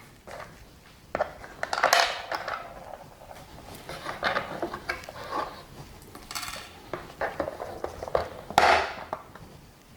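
Irregular clicks, knocks and short scrapes of a plastic armrest assembly and its loose Torx screws being handled and pulled apart by hand, with the louder knocks about two seconds in and near the end.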